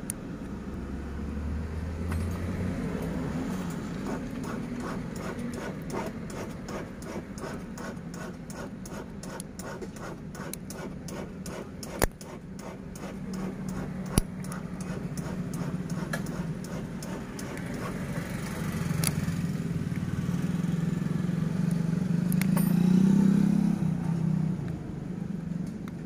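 Small scraping and two sharp clicks from a thin wire being worked into the catch of a plastic ignition-switch housing on a VW Jetta / Skoda Laura ignition lock, over a steady hum of vehicle traffic that swells near the end.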